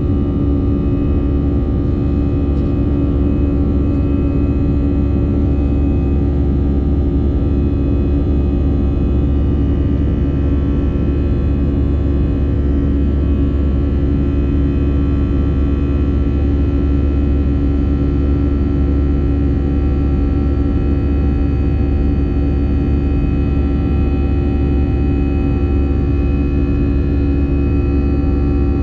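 Steady jet engine noise of an AirAsia Airbus A320-family airliner heard inside the cabin beside the wing, during the climb after takeoff. It is a deep, even rumble with several steady whining tones above it.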